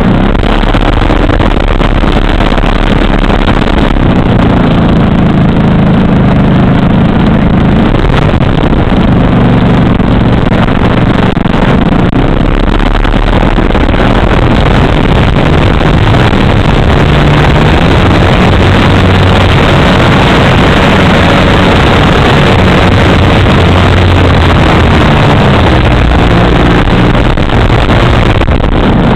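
3W gasoline engine of a large radio-controlled aerobatic plane running loud and close, picked up by a camera mounted on the plane, its pitch shifting with throttle as the plane taxis and takes off.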